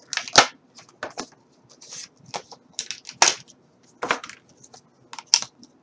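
Plastic packaging crinkling and tearing as it is pulled open by hand, in a string of irregular sharp crackles.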